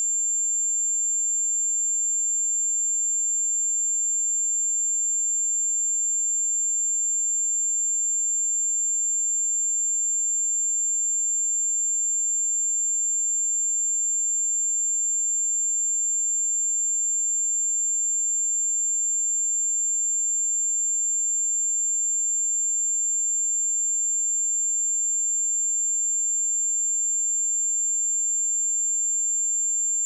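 A 7304 Hz sine-wave test tone: one steady, high-pitched pure tone held at constant pitch and level.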